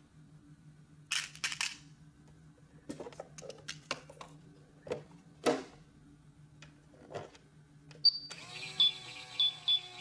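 Plastic clicks and knocks as a cup is set into a Minnie Mouse toy microwave and its door is shut. About eight seconds in, a single beep is followed by the toy's electronic tune, a repeating chime, as it starts running.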